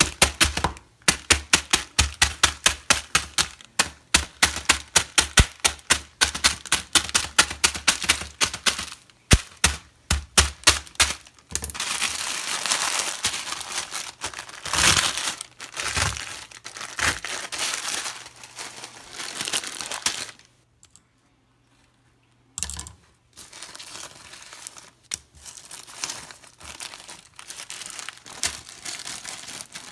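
A plastic instant-ramen packet is struck in a fast, even run of sharp hits, about three a second for roughly ten seconds, which crushes the dry noodle block inside. The packet then crinkles and rustles as it is handled, stops briefly near the two-thirds mark, and crinkles more faintly after that.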